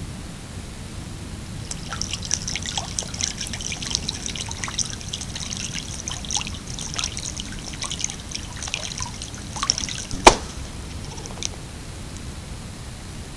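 Wood duck drake bathing in swamp water: a run of quick splashes and dips that starts about two seconds in and dies away near the end, with one sharp smack on the water about ten seconds in. A steady hiss lies under it.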